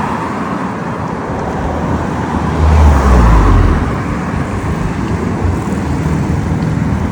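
Road traffic along a busy street, heard from a moving bicycle, with a vehicle passing close about two and a half seconds in, its low engine rumble the loudest part.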